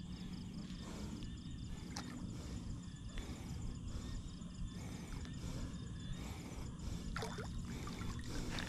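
Water sloshing and trickling, with a few small splashes and clicks.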